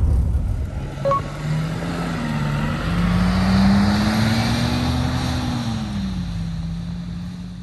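A motor vehicle's engine running, its drone rising in pitch and then falling again over a steady hiss. The sound fades away near the end.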